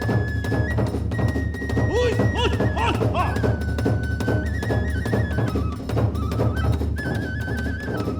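Kagura music: a bamboo transverse flute playing a stepping melody over fast, steady drumming, with brief gliding calls about two seconds in.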